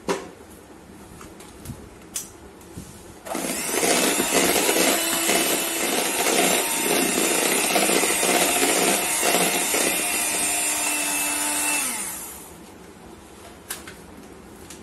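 Electric hand mixer running, its beaters whipping a cream-and-condensed-milk ice-cream base in a plastic bowl. It starts about three seconds in, runs steadily for about nine seconds, and winds down with a falling whine near the end.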